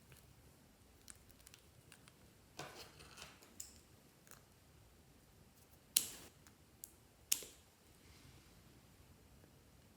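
Faint handling of slime: a crackly rustle about a third of the way in, then two sharp clicks a little over a second apart past the middle.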